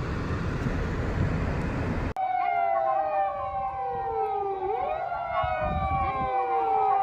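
A steady rushing noise cuts off about two seconds in. It is replaced by several emergency vehicle sirens sounding at once: wailing tones that slowly fall in pitch and sweep back up, over one steady held tone.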